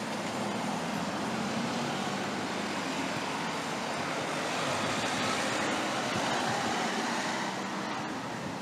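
City street traffic: a steady hum of cars and tyres on the road, growing a little louder a few seconds in as a vehicle passes.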